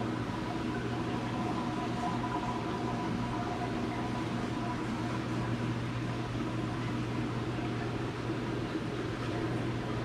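Steady hum of running machinery, with a faint high whine held throughout.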